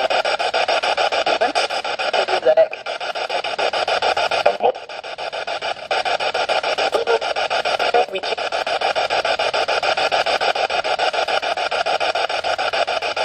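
Spirit box sweeping through radio stations: a continuous fast choppy crackle of static and snatches of broadcast sound, with brief dropouts a few times. The investigators hear words in it, captioned as "I'm on, fool! Ouija".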